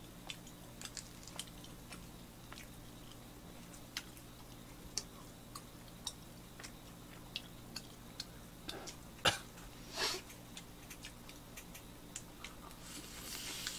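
People chewing mouthfuls of butter-toasted bread sandwich, heard as scattered quiet mouth clicks, with a couple of louder ones about nine and ten seconds in.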